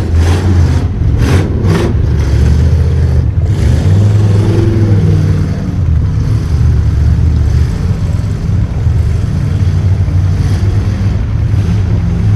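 ATV engine running close by, with the throttle rising and easing. A few sharp knocks come in the first two seconds.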